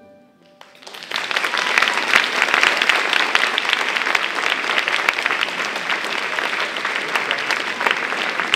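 Audience applauding, breaking out about a second in as the last note of the music fades, then holding steady as dense clapping.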